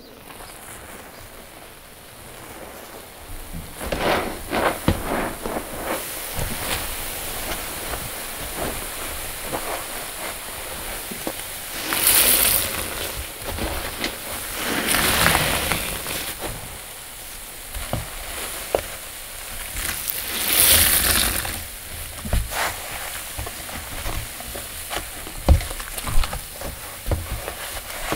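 Wet sponges soaked in a soapy paste being squeezed by hand: a continuous wet squelching and fizzing, with several louder bursts of a second or so.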